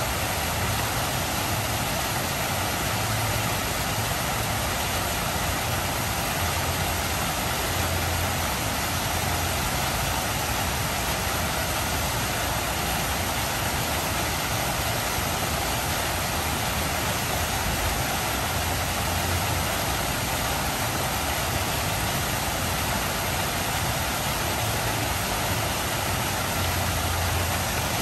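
Steady rush of water splashing from a tiered fountain's spouts and cascades, with a chorus of cicadas singing along with it.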